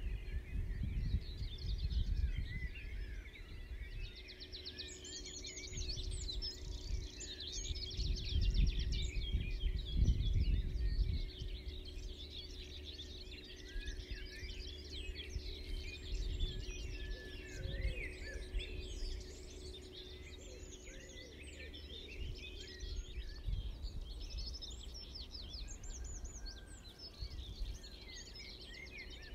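Dawn chorus: many songbirds singing and chirping at once, with gusts of wind rumbling on the microphone, strongest about two seconds in and again around eight to eleven seconds in, and a faint steady hum underneath.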